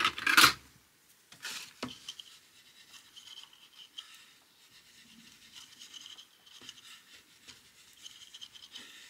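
Fingertips rubbing and pressing along a freshly glued paper flap to smooth it down from the inside of a paper box: faint, scratchy, uneven rubbing of paper, with a couple of light rustles about one and a half seconds in.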